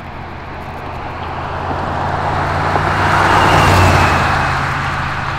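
A 1978 25th-anniversary Chevrolet Corvette's V8 running as the car drives past, its engine and tyre noise building to a peak about four seconds in and then fading.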